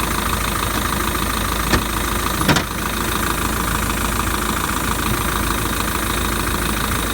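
A steady hiss, with two brief clicks about two seconds in.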